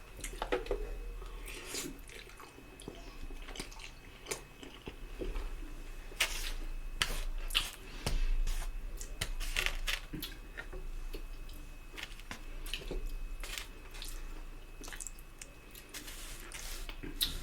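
Close-miked eating: a person chewing food with wet smacking and scattered mouth clicks.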